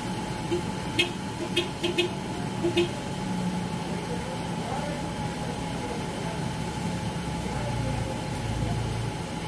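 A steady low machine hum with a thin constant tone over it, like a motor running, and four short sharp clicks between about one and three seconds in, under faint background voices.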